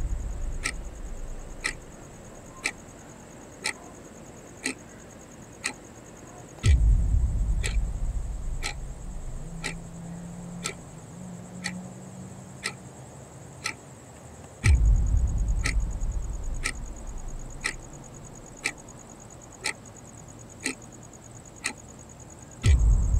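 Clock-like ticking about once a second, with a deep boom every eight seconds that dies away over several seconds, over a faint steady high whine.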